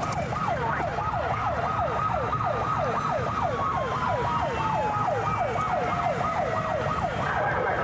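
Police car siren on yelp during a pursuit: a fast run of falling whoops, about three a second, over the rumble of the car's engine and road noise. A second, slower falling tone runs through the middle.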